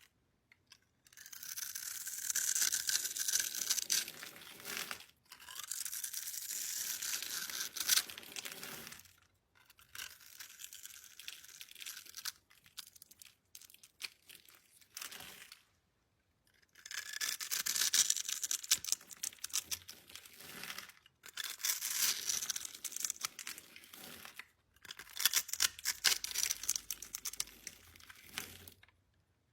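Slime being squeezed, pressed and stretched by hand, crackling with many small pops. It comes in bursts of a few seconds with short silent breaks between them.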